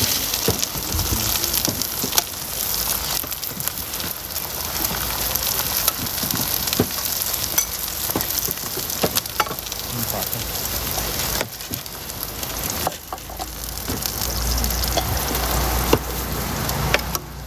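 Food sizzling as it fries on a hot stall griddle or pan, a steady hiss with scattered sharp clicks of a metal utensil. A low rumble joins in near the end.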